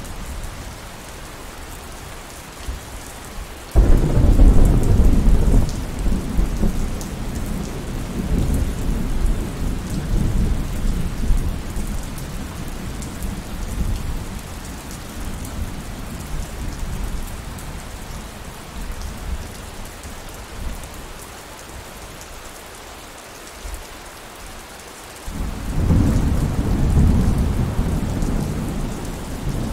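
Steady rain falling, with two rolls of thunder: a sudden deep rumble about four seconds in that slowly fades away, and another starting near the end.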